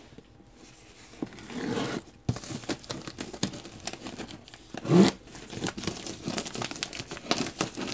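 A folding knife blade slicing through a plastic mailer bag, with the plastic crinkling and rustling under the hands. It goes as quick crackly rustles from about two seconds in, with one louder burst about five seconds in.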